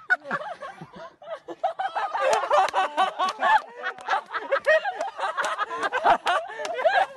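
People laughing loudly and without a break, in rapid, high-pitched ha-ha-ha bursts.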